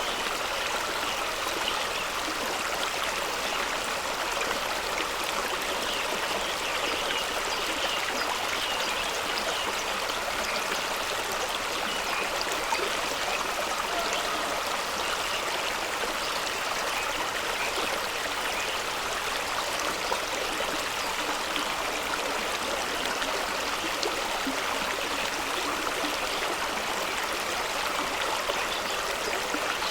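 A fast stream rushing and splashing over rocks, a steady broad wash of water with small gurgles and splashes.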